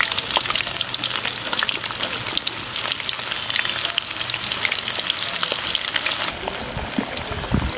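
Masala-coated cauliflower florets deep-frying in hot oil: a steady sizzle full of dense crackling.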